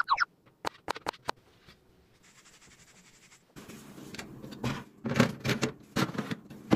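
Water dripping and plopping off a boiled bagel lifted from the pot, then a few light clicks. In the second half a countertop oven's door is opened and a metal baking tray scrapes and knocks as it slides onto the oven rack.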